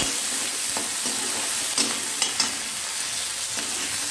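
Sliced onions and green chillies sizzling in hot oil in a metal kadhai, being sautéed while a steel spoon stirs them. The spoon clicks against the pan a few times a little under two seconds in.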